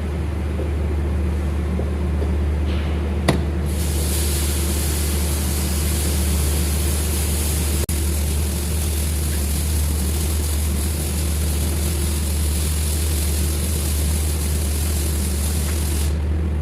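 A machine running steadily with a deep, even hum and a hiss over it, and a single sharp click about three seconds in.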